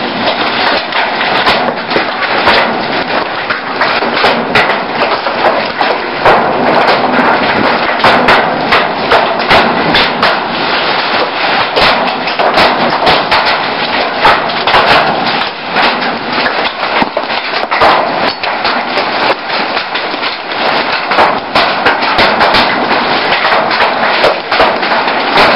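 Large hailstones falling hard: a dense, steady clatter of ice striking a carport roof, vehicles and the ground, with many sharper single strikes throughout.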